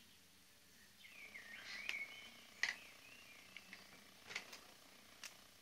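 Felt-tip pens being handled on a tabletop: a few sharp clicks, the loudest about two and a half seconds in, with faint squeaky chirping tones in the first half.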